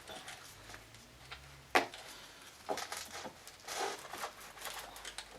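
Hand tools and metal parts being handled while a scooter engine is stripped: scattered clicks and knocks, with one sharp knock a little under two seconds in and a run of lighter ones after it.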